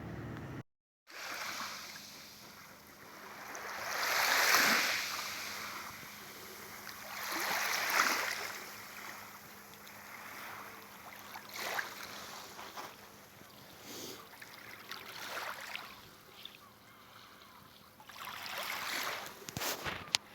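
Sea waves washing onto the shore, each wave swelling into a hiss and fading about every three to four seconds. There is a brief silent gap about a second in.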